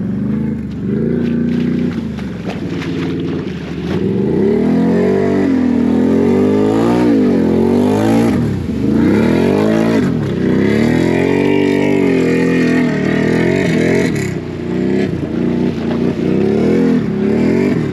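Can-Am Renegade 1000 XMR ATV's V-twin engine, fitted with a loud aftermarket SLG exhaust, revving up and dropping back again and again under hard throttle as it plows through deep muddy water, with the water splashing. It is loudest in the middle stretch.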